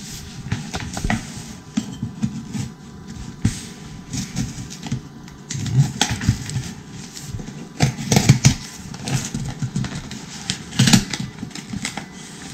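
Knife blade slitting the packing tape on a cardboard box, with irregular scraping and tapping against the cardboard and a few louder strokes in the second half.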